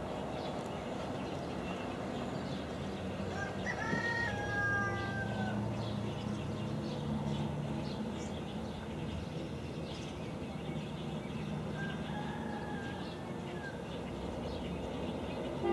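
A rooster crowing twice: a long crow about four seconds in, ending on a falling note, and a fainter one near the end. Both are heard over a steady low rumble.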